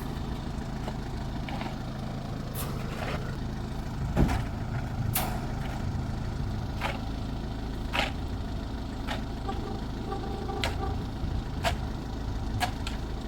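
A heavy engine running steadily, with short sharp sounds about once a second.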